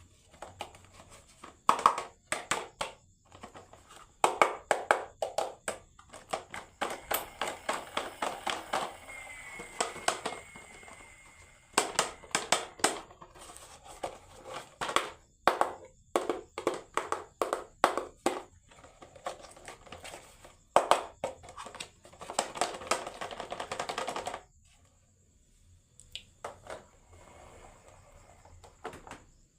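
Marbles clacking and rolling down a wooden HABA marble run: rapid clusters of sharp clicks and knocks, with stretches of steady rolling, and only a few scattered clicks near the end.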